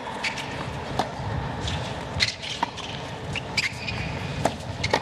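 Tennis rally on a hard court: racket strikes on the ball and its bounces, a sharp pop roughly every second, over a low steady crowd hum.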